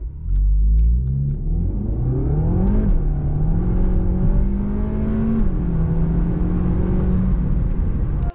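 Tuned VW Golf GTE's 1.4 TSI turbocharged four-cylinder at full throttle from a standstill, heard from inside the cabin, its note climbing in each gear. Two quick DSG upshifts drop the pitch, about three seconds in and again about five and a half seconds in.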